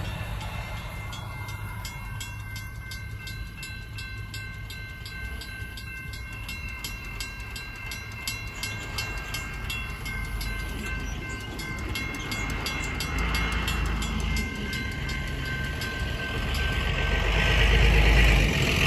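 Grade-crossing bells ringing: a mechanical crossing bell striking at an even rapid pace together with a steady electronic bell tone. Under them, the rumble of the receding empty coal train fades. A swell of rushing noise rises near the end.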